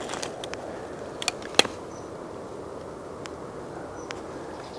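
Steady outdoor hiss with a handful of sharp clicks, the loudest about a second and a half in, and two brief faint high peeps.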